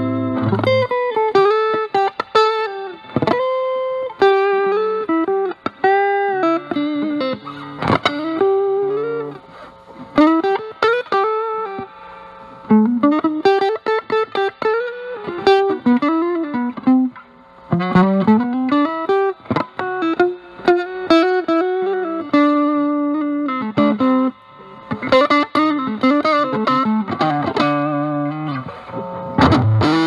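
Stratocaster through a Dunlop JDF2 Fuzz Face with NTE158 germanium transistors into a Vox Pathfinder 15R's clean channel, the guitar's volume rolled back so the fuzz cleans up to a lightly broken tone. Single-note blues lead lines with string bends and vibrato, getting busier and grittier near the end.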